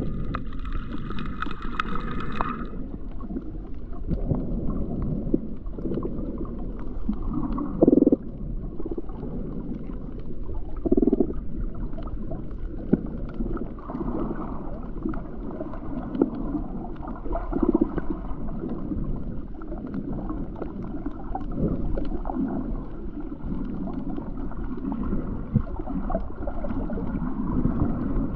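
Muffled water noise recorded underwater: a low sloshing rumble with gurgling. There is a brief higher hiss in the first couple of seconds, and a few short low hums are spread through.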